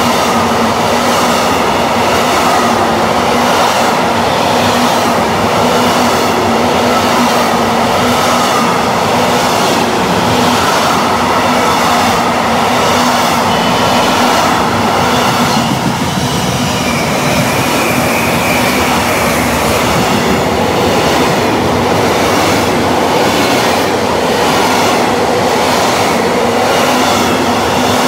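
A long Freightliner intermodal freight train passing through without stopping, its wagon wheels clattering over the rails in an even, repeating rhythm under a steady rumble. A short high wheel squeal comes about two-thirds of the way through.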